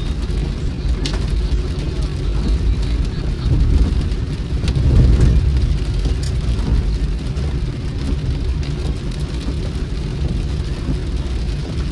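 Car driving in the rain: a steady low rumble of engine and road noise, with scattered raindrop ticks. The rumble swells briefly about five seconds in.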